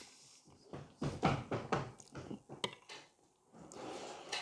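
Metal spoon clinking and scraping on a china plate while eating stew, a few short, light knocks and scrapes.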